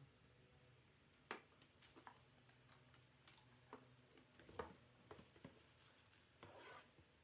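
Faint scattered clicks and light knocks from handling the speaker set and its packaging during unboxing, with a short rustle near the end.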